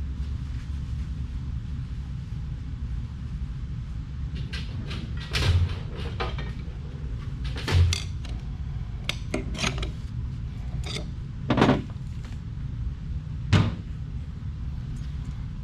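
Metal parts of an Eaton TrueTrac helical-gear differential clinking and knocking as it is taken apart, with four louder clanks spread through, over a steady low hum.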